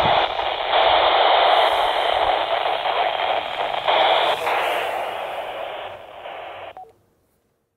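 FM receiver hiss from a handheld transceiver's speaker listening to the SO-50 satellite downlink, a steady, loud, narrow-band rush with no clear voice in it. It cuts off abruptly near the end.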